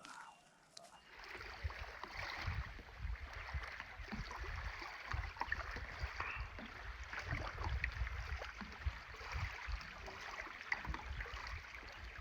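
Water lapping and gurgling at the shore, with wind buffeting the microphone; it starts about a second in.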